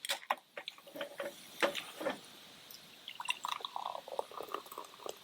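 Beer poured from a can into a cup: a few clicks and knocks of the can, then glugging and fizzing from about three seconds in.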